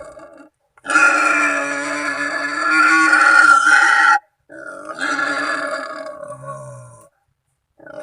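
Wild boar calls used as a hunting lure: two long, pitched calls of about three seconds each, the second quieter, each cut off abruptly.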